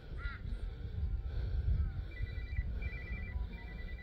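A small bell rung rapidly, a quick run of short high ringing strokes starting about halfway in, over a low rumble of wind on the microphone.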